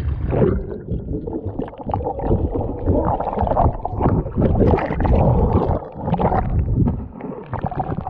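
Water sloshing and gurgling around an action camera held just under the surface of a lake, heard muffled through the water, in irregular surges with small crackles and knocks.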